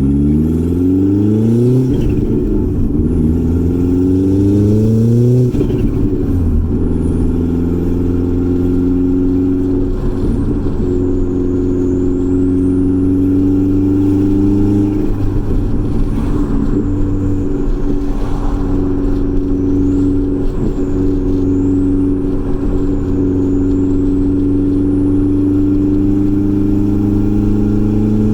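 Turbocharged 1.8-litre four-cylinder engine of a B5 Audi A4, running on a stock K03 turbo at maximum boost. It climbs in revs twice in the first five seconds, with a shift between the climbs, then holds a steady cruise and starts to climb again near the end.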